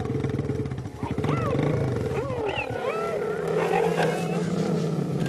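Cheetahs vocalising: a low, rapidly pulsing growling rumble, with several short high calls over it that rise and fall in pitch.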